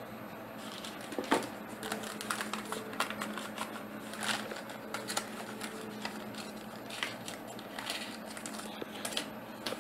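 Hands handling a CD and its paper sleeve and other paper packaging: paper rustling with many scattered small clicks and taps.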